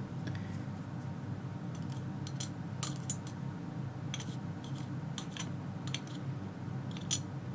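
Light metallic clicks and taps of small lock pins and tweezers being handled on a pinning tray, about a dozen scattered clicks, over a steady low hum.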